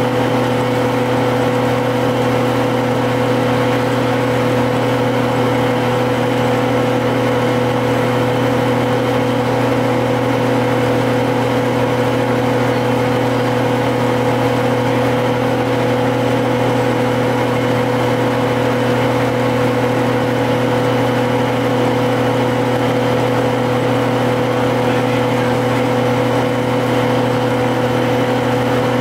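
GM TDH-5303 transit bus's Detroit Diesel two-stroke engine running steadily, its pitch holding level throughout, with an even hum of road and drivetrain noise under it.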